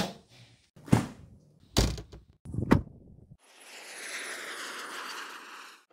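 Four heavy knocks, about a second apart. Then a steady airliner-cabin rush, a hiss with a faint thin high whine.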